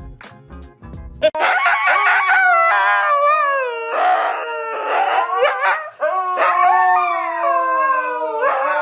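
A dog howling in long calls that waver and slide in pitch, starting about a second in after a moment of background music.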